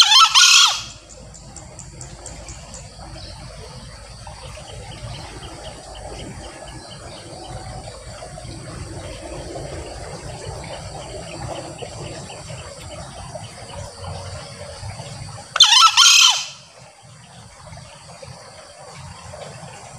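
Male green junglefowl crowing twice, about fifteen seconds apart; each crow is a short, high-pitched call lasting about a second. Insects chirr steadily in the background between the crows.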